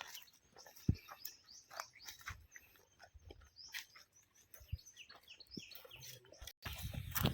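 Birds chirping faintly and intermittently in woodland, with a few light clicks. Near the end the sound cuts out for a moment, then louder footsteps and rustling begin.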